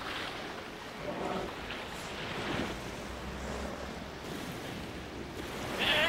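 Ocean surf washing onto a beach in a steady wash of noise that swells and eases, with a louder splash near the end.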